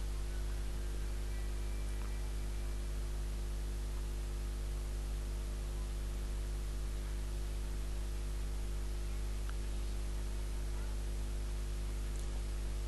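Steady electrical mains hum with a low buzz and an even hiss, unchanging throughout.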